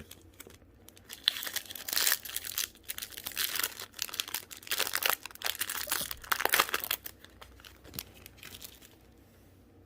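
Plastic trading-card booster pack wrapper being torn open and crinkled in the hands: dense crackling from about a second in to about seven seconds in, then a few faint ticks.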